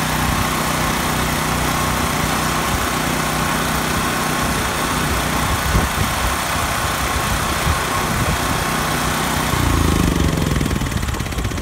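Small portable gas generator's engine running steadily, powering the pump that fills the siphon pipe. About ten seconds in, the steady tone gives way to a rougher, lower rumble.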